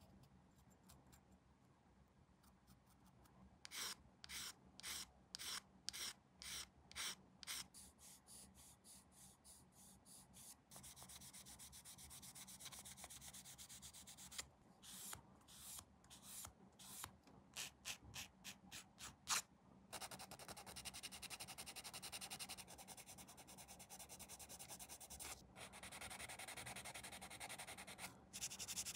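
Sanding on a plastic model kit part: faint, quick back-and-forth strokes, about two a second at first, then longer stretches of steady rubbing, with a second run of separate strokes partway through.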